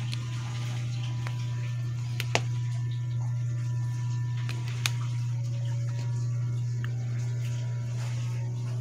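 A steady low hum, with two sharp clicks, the first about two and a half seconds in and the second about two and a half seconds later.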